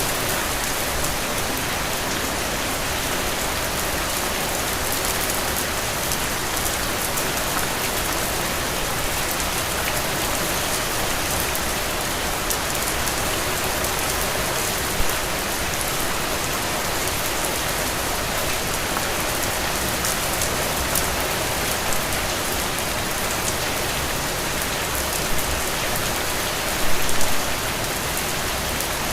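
Heavy rain falling steadily, an even dense hiss of drops, with a few brief louder splashes or taps, the loudest near the end.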